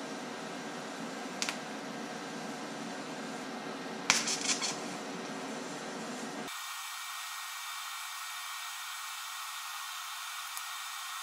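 Steady hiss and hum of arc welding on steel pipe strips, with a few short clicks early on and around the middle. About two-thirds of the way through, the low part of the sound cuts out abruptly, leaving a thinner hiss.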